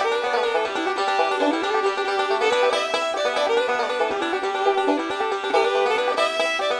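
Background music: an instrumental led by a plucked string instrument, playing a busy, steady melody.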